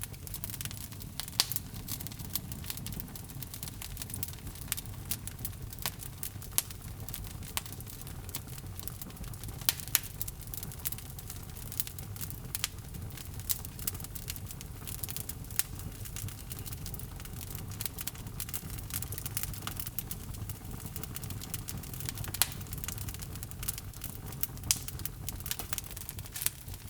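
Log fire crackling in a fireplace: irregular sharp pops and snaps, a few louder than the rest, over a low steady rumble.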